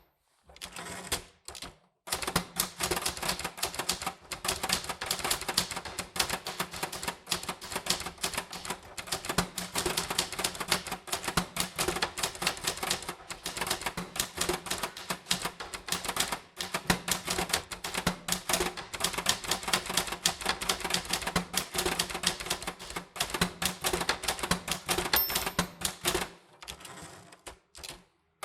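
Typewriter keys being struck in a fast, steady run of clacks, pausing briefly about a second in and again shortly before the end.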